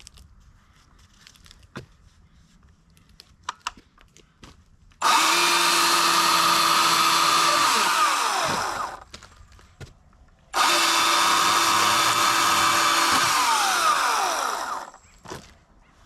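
EGO CS2005 20-inch battery chainsaw running in two bursts of about three and four seconds. Each burst starts abruptly, holds a steady whine, then falls away in pitch as the chain spins down. Faint clicks and footsteps come before and between the bursts.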